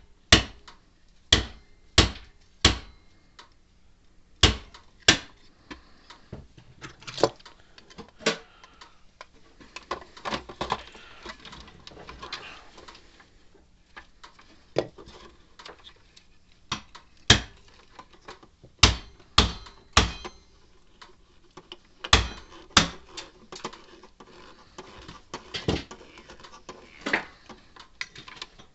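Irregular sharp clicks and knocks of parts and tools being handled on a workbench while a fence energizer's circuit board is changed, with some faint rustling partway through.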